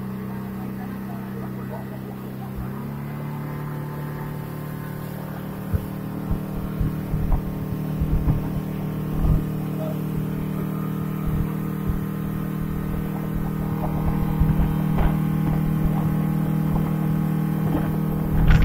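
Motorboat engine running at cruising speed, a steady drone that shifts slightly in pitch about three seconds in. From about six seconds in, rushing water and irregular thumps of wind buffeting the microphone grow louder.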